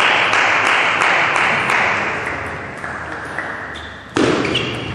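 Spectators in a hall applauding after a table tennis rally, the clapping fading away over about four seconds. A sudden loud sound comes near the end.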